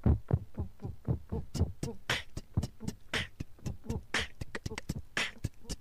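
Human beatboxing: a fast, even run of lip-popped 'pup' bass kicks, about five a second, with a sharper snare-like hit about once a second.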